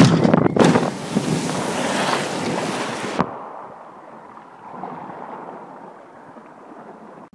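Nautic Jet jumping boat hitting the water at the foot of its ramp and skimming across the pool. A loud rumble at the impact turns into a rushing hiss of spray and water, which cuts off suddenly about three seconds in and leaves a much fainter wash as the boat slows.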